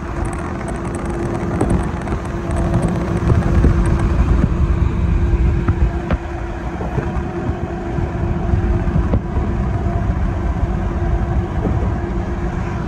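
Steady low rumble of a moving vehicle, road and engine noise, with a faint steady hum under it.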